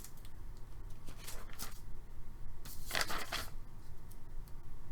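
Trading cards being handled and slid against one another, a few short papery swishes with the loudest about three seconds in.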